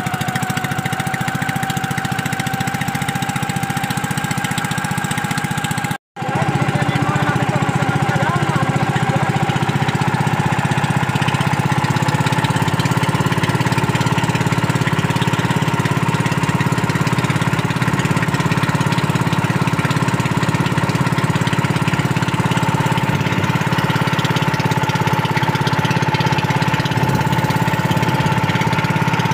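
Small boat engine running steadily, its note rising slightly over the stretch. The sound cuts out completely for a split second about six seconds in.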